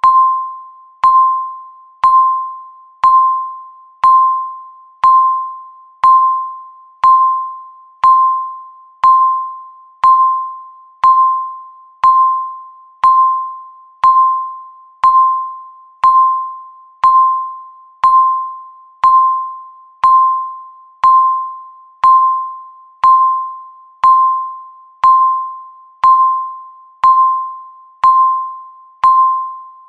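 Countdown timer beeping once a second: a single mid-pitched electronic tone that strikes sharply and fades away before the next, marking each second left.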